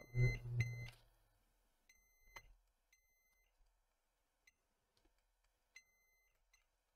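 A multimeter's continuity beeper gives three faint, high beeps of about half a second each: one at the start, one about two seconds in and one near the end. Between them come light clicks of the probe tips on the transistor legs. Each beep marks a short across an output transistor in the car amplifier.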